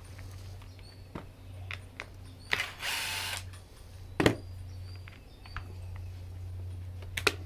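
A cordless drill-driver run briefly in a short whirring burst, as when backing out a grinder housing screw. It is followed by a sharp knock a second later and light clicks of tools and parts near the end, over a steady low hum.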